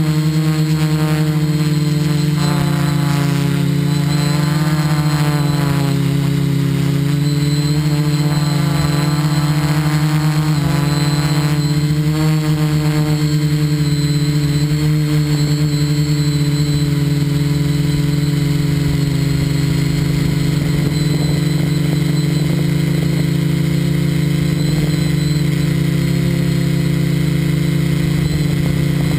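Motor of a radio-controlled FPV model running, heard through its onboard camera: a steady low hum with overtones that waver up and down for the first dozen seconds, then hold steadier.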